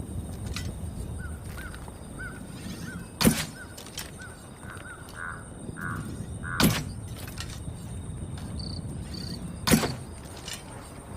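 A bow being shot three times, each a sharp thwack, about three seconds apart. In the first half a bird calls repeatedly in short chirps, over a steady outdoor rumble.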